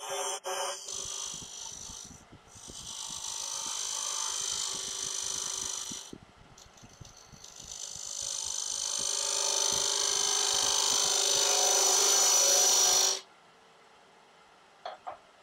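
Narrow parting tool cutting into the face of a spinning wooden box blank on a wood lathe: a scraping hiss in three stretches, the last and longest growing louder before it cuts off sharply about thirteen seconds in. Two short clicks near the end.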